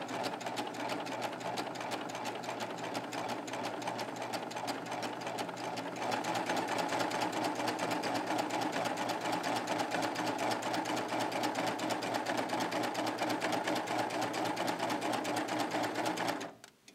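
Baby Lock Triumph serger stitching a narrow cover stitch: a rapid, steady run of needle strokes that gets louder about six seconds in and stops shortly before the end.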